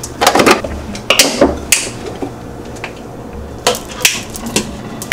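Kitchen clatter: mugs, lids and utensils clinking and knocking on a countertop while a hot drink is made, as a handful of separate clicks and knocks.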